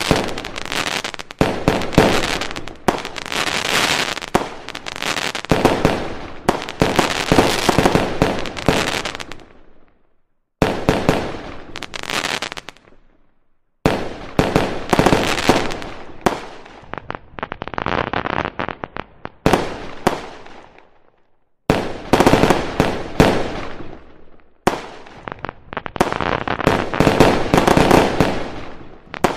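A fireworks display going off in rapid barrages: dense runs of bangs and crackles that each start abruptly. The firing breaks off briefly three times, about ten, thirteen and twenty-one seconds in.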